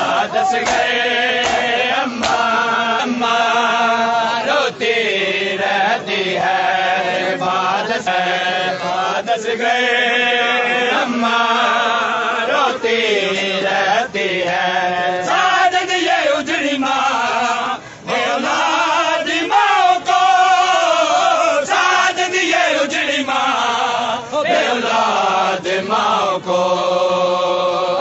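Men chanting a Shia nauha (lament) in chorus, accompanied by sharp hand slaps on bare chests (matam) in time with the chant.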